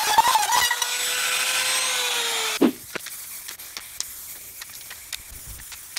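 Compact trim router cutting into a wooden board, then running free with a steady whine for about two seconds. The whine sags slightly in pitch and stops abruptly with a thump about two and a half seconds in. After that there are only faint scattered clicks and rustles.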